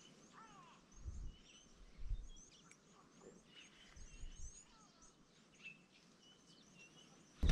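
Wild birds chirping and calling faintly, many short high notes scattered throughout, with a few soft low rumbles about one, two and four seconds in.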